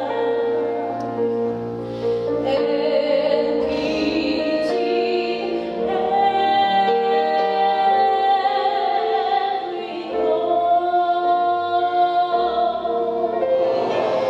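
Female gospel soloist singing long, held notes into a microphone over a low backing, with the choir coming in near the end.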